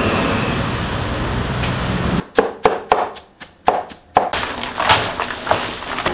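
A kitchen knife chopping sliced onions in a wooden trough: about six sharp knocks over two seconds, after a steady background hum breaks off. Softer irregular thuds and rustling follow.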